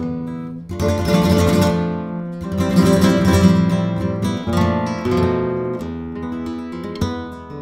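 1983 Conde Hermanos flamenco guitar, a cypress-bodied 'blanca', played solo in flamenco style: strummed chords about a second in and again around three seconds in, between plucked notes, with a sharp percussive click near the end.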